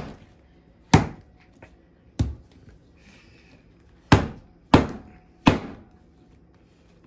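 Bread dough lifted and slammed down onto a silicone pastry mat on a wooden counter, the banging technique of kneading that makes the dough soft. Five heavy thuds come at uneven intervals, the last three in quicker succession.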